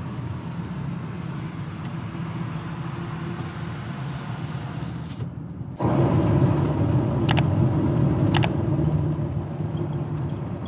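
Steady engine and road noise of a camper van heard from inside the cab while driving. It drops out briefly about halfway, then comes back louder inside a road tunnel. Two sharp clicks sound about a second apart.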